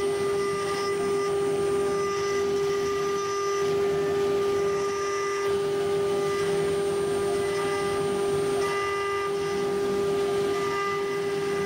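CNC router spindle running at a steady high pitch while a fine engraving bit carves a relief into a metal block, with the noise of the cut beneath the whine.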